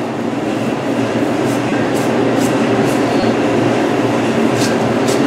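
Steady low hum of a walk-in cooler's refrigeration unit, with a few faint short scrapes of a knife working the hide off a hanging deer carcass.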